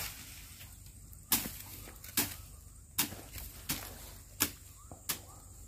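A blade hacking through thick swamp grass and undergrowth: about six sharp swishing chops, roughly one every three-quarters of a second, as the brush is cleared.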